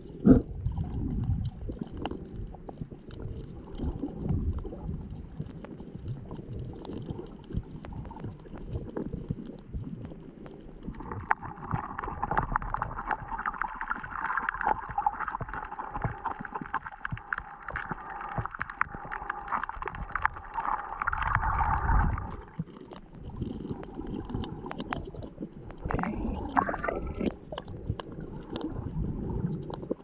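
Water sloshing and gurgling, heard from underwater over a shallow coral reef, with scattered clicks and crackles throughout. About a third of the way in, a dense crackling hiss joins it and stops abruptly about two thirds of the way through.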